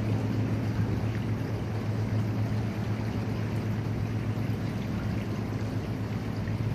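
A steady low engine hum under a continuous rushing noise.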